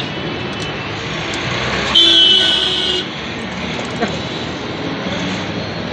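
A vehicle horn sounds once, a steady honk lasting about a second, about two seconds in, over a constant hum of road traffic.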